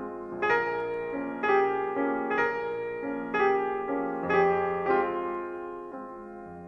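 Slow piano music: a note or chord struck about once a second, each left to ring and fade.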